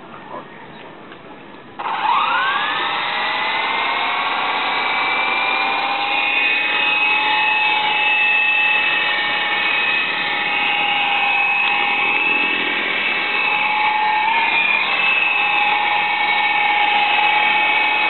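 Syma 033G toy RC helicopter's electric motors and rotors spinning up with a rising whine about two seconds in. It then holds a steady high whine as it hovers, the pitch wavering slightly with throttle.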